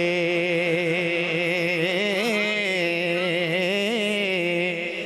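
A man singing one long, wavering held note with ornaments into a microphone, in a Punjabi devotional song (naat/kalam); the note dies away near the end.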